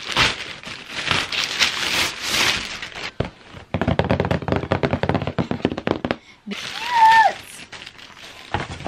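Plastic poly mailer rustling and crinkling as a package is torn open and handled, then paper packing crinkling as the item inside is unwrapped. A short hummed note from a voice about seven seconds in.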